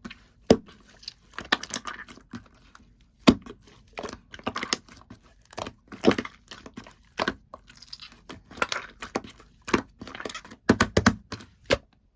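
Two-layer slime being squeezed and pressed by hand, giving bursts of sharp crackling pops and clicks with short pauses between.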